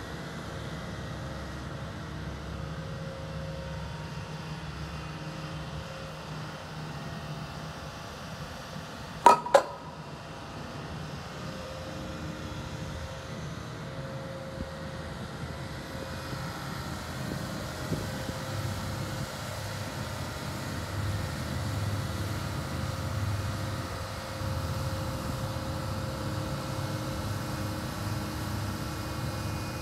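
2012 Fuchs MHL340D material handler's diesel engine and hydraulics running steadily as the boom with its 48-inch Ohio scrap magnet is raised and swung out. Two sharp clanks close together come about nine seconds in, and the engine note grows louder in the second half.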